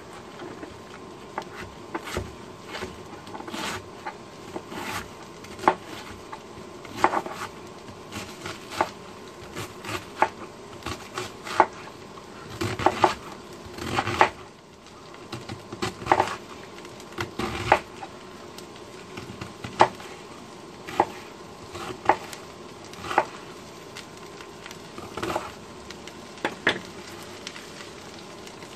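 Chef's knife slicing a head of green cabbage into thin strips on a plastic cutting board: sharp, irregular knocks of the blade meeting the board, about one a second, with a few quick cuts close together. A steady buzzing hum runs underneath.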